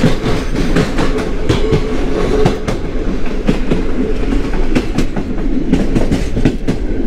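Passenger train running on the rails: a loud, steady rumble with a rapid, uneven clatter of the wheels over rail joints.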